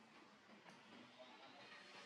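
Near silence: a faint background hiss, with one faint click about two thirds of a second in.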